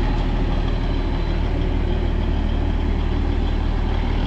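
Diesel engine of a cog railway train idling with a steady low hum.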